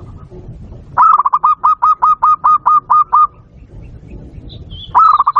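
Zebra dove (perkutut) cooing: a fast, even series of about a dozen short notes starting about a second in, then another quick run starting near the end. Faint higher chirps from another bird come in between.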